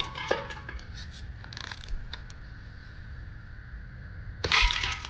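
Daisy Model 105 Buck spring-powered BB rifle firing: a sharp crack with a brief metallic ringing right at the start, a few light clicks, then a second shot with the same ringing about four and a half seconds in.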